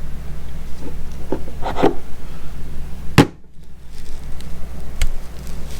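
A large neodymium lifting magnet knocking and sliding against a refrigerator's steel door, with a few short knocks and one sharp clack about three seconds in, over a steady low hum.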